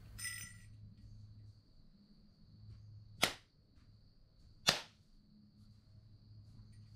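Two sharp hand claps, about a second and a half apart: the two claps of worship offered at a Shinto shrine.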